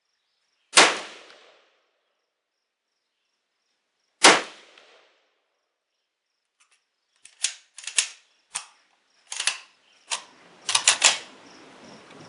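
Two single rifle shots from a Yugo SKS 59/66A1 in 7.62x39, about three and a half seconds apart, each with a short echo. These are followed by a quick run of quieter, sharp metallic clicks and clacks, with insects chirping faintly.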